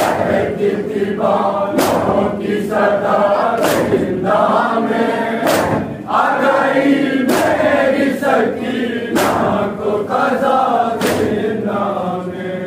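Group of men chanting a nauha lament in unison, with loud chest-beating slaps (matam) struck together about every two seconds, lighter slaps falling between them.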